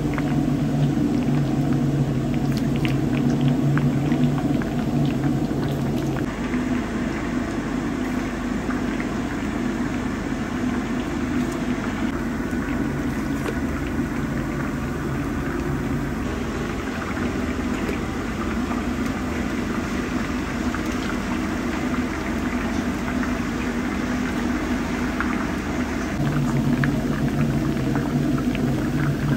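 Meat frying in deep oil in a large cast-iron kazan: a steady sizzle and bubbling with many small crackles as the oil foams. A low steady hum runs under it for the first few seconds and comes back near the end.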